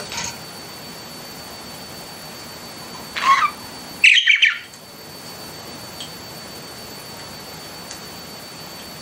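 Pet budgerigars giving three short chirps and squawks, the loudest and busiest about four seconds in. Under them runs a steady hiss with a faint high steady whine.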